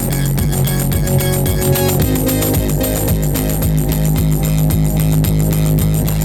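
Rock music with guitar, drums and a heavy bass line, played through a Sony SAW Super Woofer SS-XB88V speaker in a bass test. Strong low bass notes dominate and change pitch about two seconds in.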